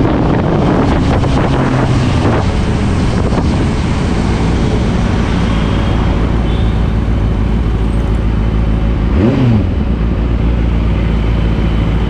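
Benelli TNT 600i motorcycle's inline-four engine running, with wind rushing over the microphone at first, then settling to a steady low note. About nine seconds in there is one quick throttle blip, the revs rising and falling sharply.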